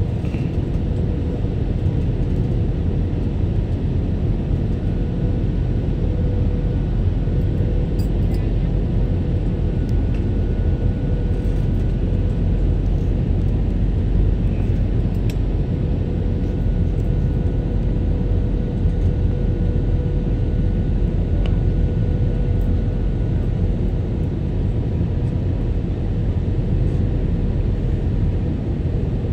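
Airliner cabin noise on the landing approach: a steady, even rumble of the jet engines and rushing air heard from inside the cabin, with a faint steady hum-like tone riding on it.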